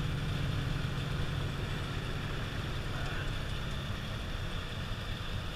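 Peterbilt 379 semi truck's diesel engine running steadily at highway speed, heard inside the cab over steady road and wind noise.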